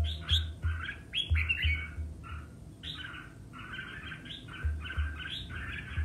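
Red-whiskered bulbul singing competitive fighting song: quick runs of short, bright chirping and warbling notes, with a brief pause about two seconds in.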